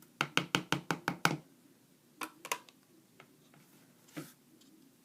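A quick run of about seven sharp knocks against a bowl, followed by a couple more knocks and then a single one, as the slime is worked into it.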